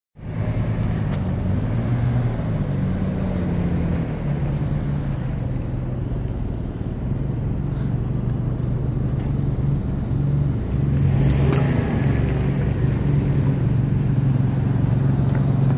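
Off-road vehicle engine running steadily close by, a low even drone with no revving, and a brief rush of noise about eleven seconds in.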